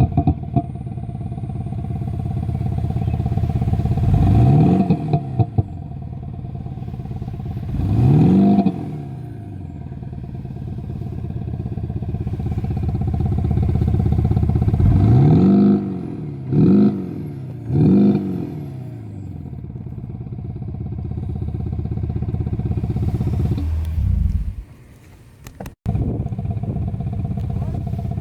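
Audi A6/A7 (C7) running with an aftermarket active sound module that plays a synthetic V8 engine note: a steady idle with five revs that rise and fall in pitch, the last three as quick blips, and a few short sharp pops around the first rev. Near the end the sound drops away briefly and comes back after a single sharp click.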